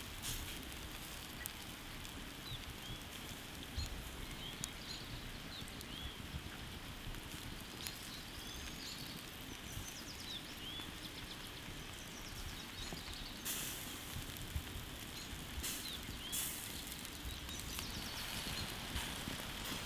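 Wood-fire embers crackling steadily under a spit-roast, with a couple of sharper pops about two-thirds through. Small birds chirp now and then.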